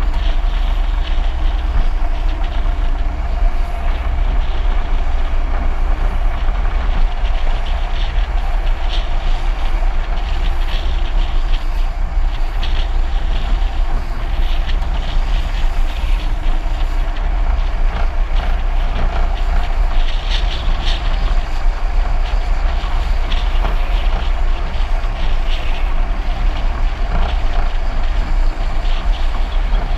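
Heavy wind buffeting on the microphone over the steady tyre and road noise of a car driving fast down a mountain road.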